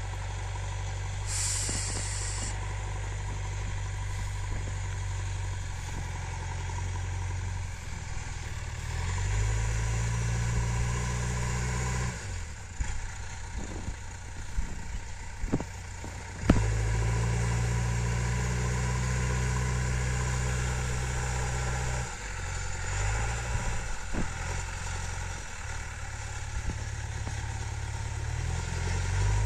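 JCB 3DX backhoe loader's diesel engine running, revving up and easing off several times as the machine works. Sharp knocks come through the middle and again later. A brief hiss comes about two seconds in.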